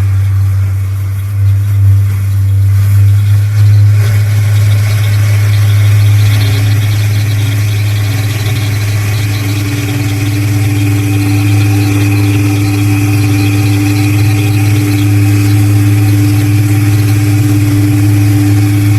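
Ocean liner's whistle sounding one long, deep, steady blast. A fainter, higher tone joins in several seconds in.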